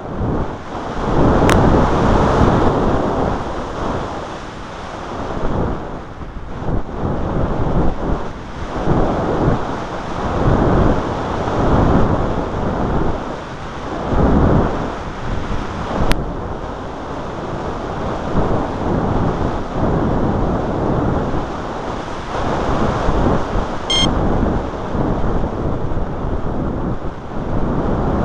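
Heavy wind noise buffeting the microphone, swelling and fading in gusts every few seconds, with no motor heard. A short high electronic chirp sounds near the end.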